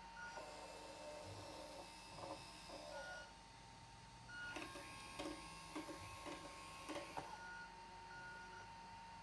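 Electric tipping mechanism of a Bruder RC tipper trailer: the small motor and gearbox whir as the dump body rises, stop briefly, then whir again with several clicks as the body comes back down.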